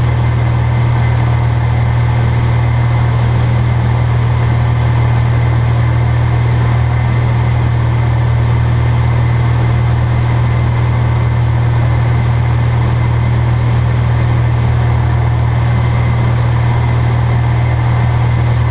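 Light single-engine aircraft's piston engine and propeller droning steadily, heard from inside the cockpit cabin, with a strong low hum.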